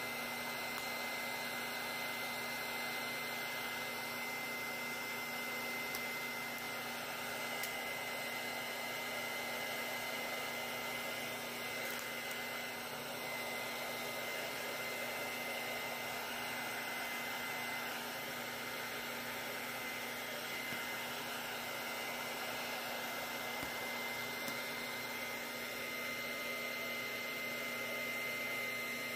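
Steady whir of a small electric blower motor, with a thin constant whine over it.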